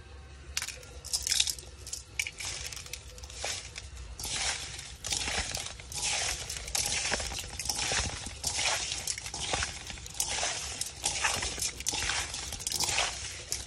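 Hands squeezing and scrubbing raw snail meat with gritty white grains in a stainless steel bowl: wet, gritty squishing and scraping in quick, irregular strokes, starting about half a second in.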